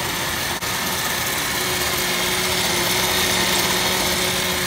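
Countertop blender running steadily at speed, its blades grinding raw peanuts with coconut milk into a smooth liquid.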